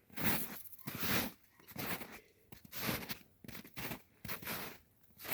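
Footsteps crunching through snow at a steady walking pace, about three steps every two seconds.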